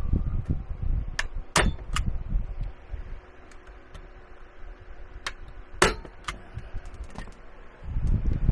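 Thin cookie-cutter strip being bent and fitted around a table edge: a handful of sharp metallic clinks and taps, two of them louder than the rest. A low rumble sits under them at the start and again near the end.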